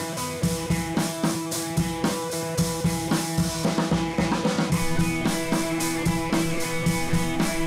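Background music with a steady drum beat over held instrumental notes.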